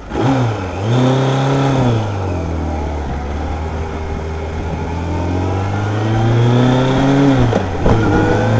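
1977 Kawasaki KZ1000's air-cooled inline-four engine pulling away from a stop and accelerating. The revs rise and fall twice in the first two seconds as the bike moves off, hold steady, then climb. Near the end they dip sharply at a gear change and start climbing again.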